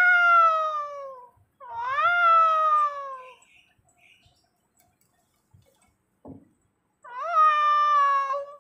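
Recorded angry-cat meows played back to kittens: three long, drawn-out calls, each rising then falling in pitch. The first two come close together, and the third follows after a gap of several seconds.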